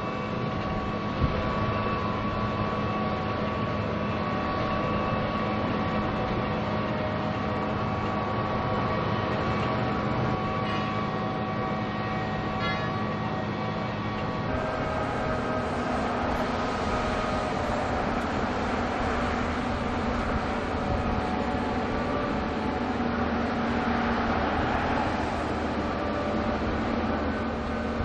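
Diesel engine of a Grove mobile crane running steadily: a continuous rumble with a steady whine over it. The pitch of the hum and whine shifts about halfway through.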